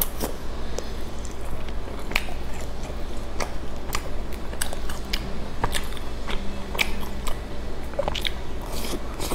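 A person biting and chewing milk-dipped square crackers close to the microphone: irregular sharp bite clicks and wet mouth sounds, about one or two a second.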